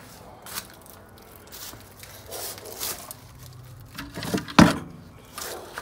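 Junk being shifted around on a concrete floor: scattered scrapes and rustles, with one sharp knock about four and a half seconds in, the loudest sound.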